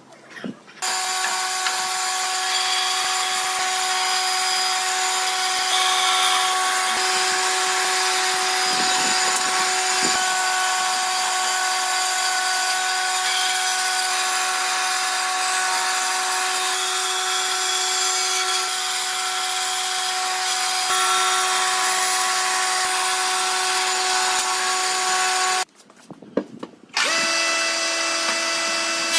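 Electric power tool motor running at a steady speed, stopping briefly near the end and starting again.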